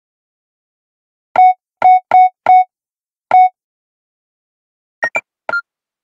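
Electronic beeps: five short beeps at one pitch, unevenly spaced, followed near the end by three quicker, higher chirps at differing pitches.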